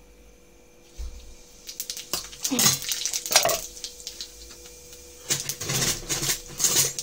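Metal spoon clinking and scraping against an iron kadhai as cumin seeds are tipped into hot mustard oil, with a light sizzle from the seeds. The clinks come in two spells, a couple of seconds in and again near the end.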